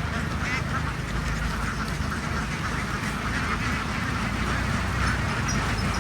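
A large flock of farm ducks quacking continuously, many calls overlapping into a steady chatter, over a steady low rumble.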